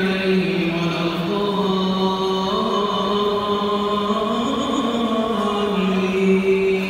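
Voices chanting in long, drawn-out melodic notes that slide from one pitch to the next.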